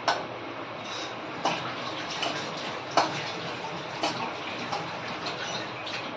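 Water running from a tap into a metal kitchen sink as hands are washed under it, with a few sharp clacks about every second and a half.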